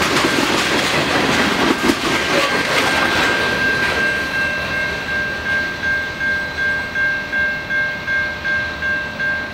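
The tail-end freight cars of a train rolling past, wheels clattering over the rail joints for the first few seconds. Then the train clears and a grade-crossing bell rings on by itself, a steady ding about twice a second.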